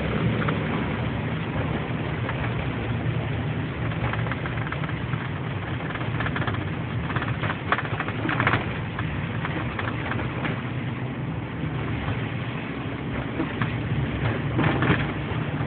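Car engine and road noise heard inside the cabin while driving, a steady low drone, with a few short clicks and knocks around the middle and near the end.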